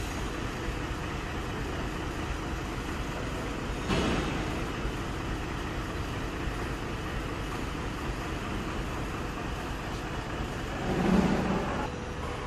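Steady road and engine noise of a vehicle on the move, with a short sharp burst about four seconds in and a louder swell near the end.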